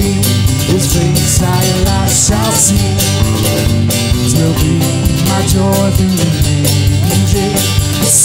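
Country-gospel band music with guitar, bass and drum kit, with cymbal hits coming every second or so, playing a passage between sung verses of a hymn.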